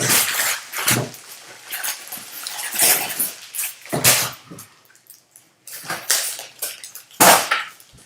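Packaging being handled and torn open for a trading-card box break: irregular crinkling and rustling of wrapper and cardboard, with a short pause partway through and a sharper rip near the end.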